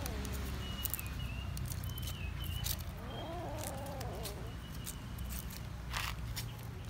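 A young animal's single wavering, whining cry lasting about a second and a half, starting about three seconds in. Under it runs a steady low rumble, with faint thin high chirps and scattered sharp ticks.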